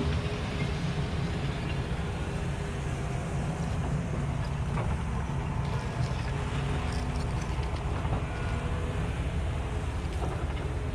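Steady low engine rumble, as of heavy machinery running, with a few faint clinks about halfway through.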